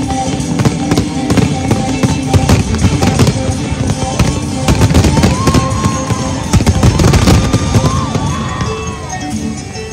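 Fireworks display: rapid volleys of aerial shells bursting in many quick bangs, with show music playing underneath.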